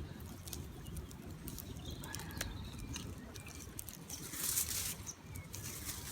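Outdoor ambience: wind buffeting the microphone as a low rumble, with scattered small clicks and crackles and a brief rustle about four and a half seconds in. A few faint bird calls sound in the background.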